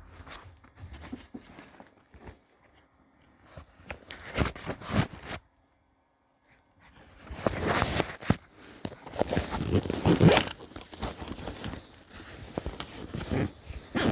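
Zippers and nylon fabric of a backpack being handled: irregular rasps, rustles and scrapes as pouches are closed and the main compartment is opened, with a brief silent gap about halfway.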